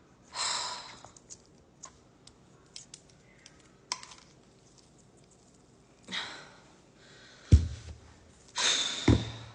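Struggling to twist open a Talenti ice cream jar's plastic screw lid: heavy exhales and sighs of effort, small clicks from the lid and jar, and two loud thumps in the second half.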